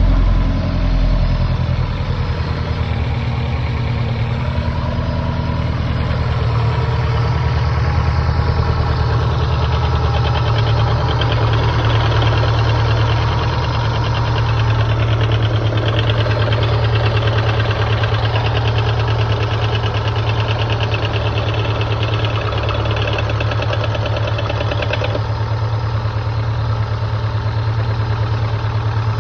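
Subaru Impreza STI's turbocharged 2.5-litre flat-four with unequal-length headers idling steadily after a cold start. The owner suspects a knock from spun rod bearings.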